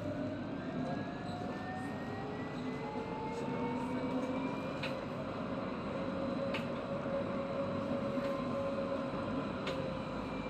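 Electric tram running along its track, heard from inside the driver's cab. The traction motors whine, rising in pitch over the first five or six seconds as the tram picks up speed, then holding steady over the rumble of the wheels. A few sharp clicks come through along the way.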